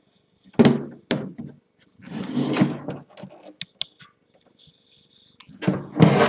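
A typewriter carrying case being handled: a couple of thumps, a scrape, then a few sharp clicks, with louder knocks near the end.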